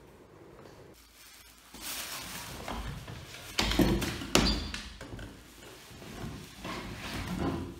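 A scuffle: a plastic bin bag rustling as it is pulled over someone's head, with knocks and bumps of a struggle against a chair and desk, loudest about four seconds in.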